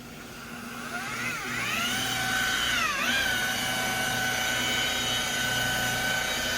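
Electric paint-correction polisher (buffer) spinning up, its motor whine rising and dipping in pitch twice before settling to a steady pitch about three seconds in.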